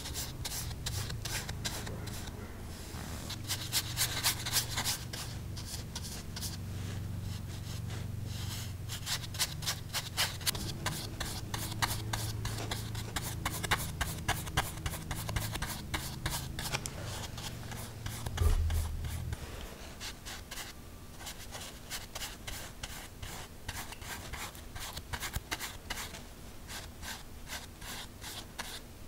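Paintbrush loaded with poster paint stroking back and forth across hot-pressed watercolour paper: a steady run of soft, scratchy brushing strokes. A low hum sits underneath for the first two-thirds and stops, just after a single low thump.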